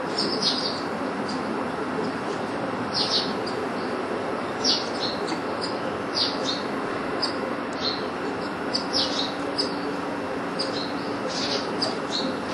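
Southern masked weaver giving short, sharp chirps, scattered irregularly a few every couple of seconds, over a steady background noise with a faint low hum.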